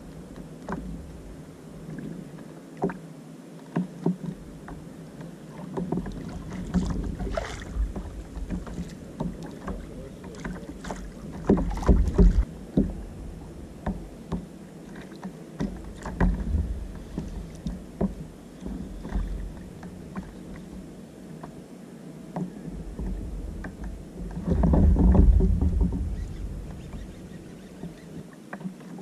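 Small waves lapping and slapping against the plastic hull of a sit-on-top kayak, with scattered knocks and clicks throughout. Two louder low rumbles, about 12 and 25 seconds in.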